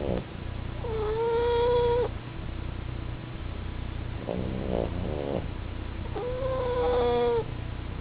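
A pug and a French bulldog snoring: two high whistling snores, each held steady for about a second, one about a second in and one near the end, with a rattling snore between them.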